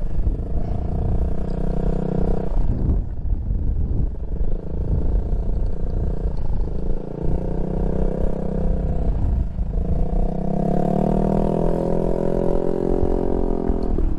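Motorcycle engine running on the move, its pitch rising as it pulls and dropping back at breaks about three seconds in and again near ten seconds, like gear changes or throttle lifts, over a steady low wind rumble on the microphone.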